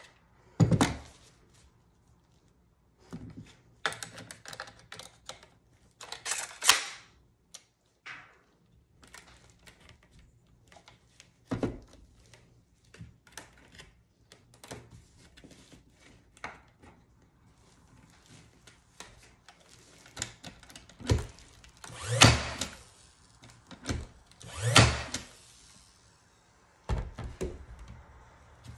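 Porter-Cable 20V cordless brad nailer being loaded and handled, along with the wooden frame on the table: a scattering of separate sharp clacks and thunks with quiet gaps between them. The loudest are two close together in the last third.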